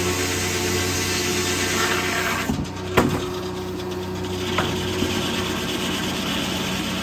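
Corley circle sawmill running with its steady engine drone while the circular saw blade cuts through a white oak log. The rasping cut noise drops off about two and a half seconds in, a sharp knock follows, and rasping sawing noise picks up again about four seconds in.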